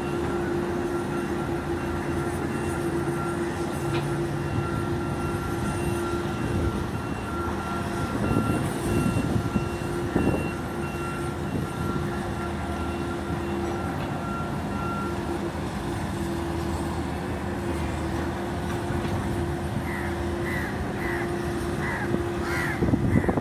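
Diesel engine of a single-drum road roller (soil compactor) running steadily as it drives over the site: a constant drone with a steady hum, swelling into louder rumbles about eight and ten seconds in. Near the end, a run of short high chirps repeats several times.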